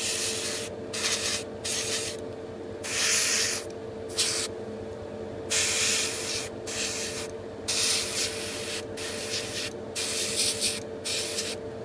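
Airbrush spraying thinned paint in about ten short on-off bursts of hiss, each half a second to a second long, as a light mist coat goes onto a small plastic model part. A steady hum runs underneath.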